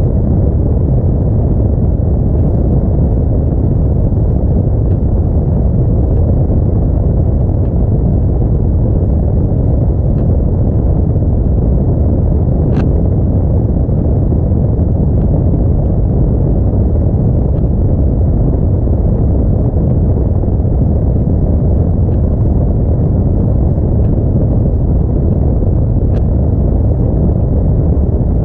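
Steady low rumble of an Audi A4 driving on a snowy road: tyre, road and engine noise with no change in pace, and a faint click about halfway through.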